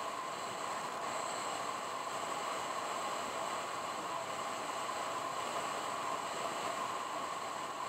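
Steady road and wind noise of a car being driven, an even hiss with no changes.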